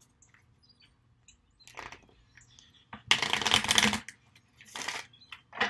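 Oracle cards being shuffled by hand: a few soft rustles, then a loud crackling burst of shuffling about a second long past the middle, and a shorter one near the end.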